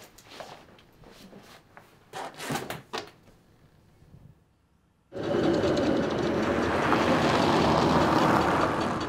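Faint rustling and a few soft knocks of someone moving about a room. About five seconds in, loud street noise cuts in suddenly: a vehicle passing close in city traffic, easing off near the end.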